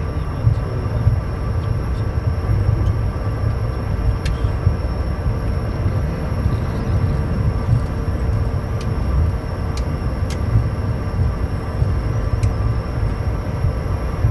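Cockpit sound of a Bombardier Challenger 350 taxiing at low speed: a steady low rumble with a thin, steady whine above it from the idling Honeywell HTF7350 turbofans.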